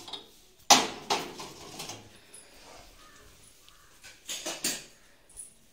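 Ceramic cups clattering against a steel rack as they are picked up, with one sharp knock about a second in and a couple of softer clatters near the end.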